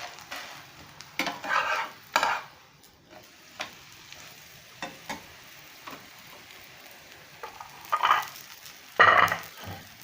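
Parotta frying in ghee on a hot pan, a steady sizzle. A few short, louder scraping strokes come about a second in and again near the end, the loudest just before the end.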